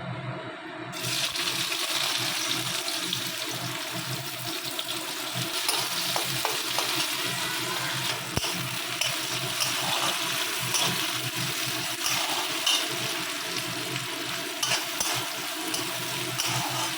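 Chopped onions sizzling in hot oil in a kadai, the hiss starting suddenly about a second in as they go into the oil, with a few light clicks of a stirring spoon.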